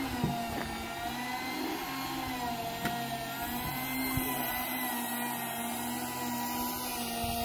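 An engine running steadily at constant speed, a humming drone whose pitch wavers slightly, with a few faint knocks over it.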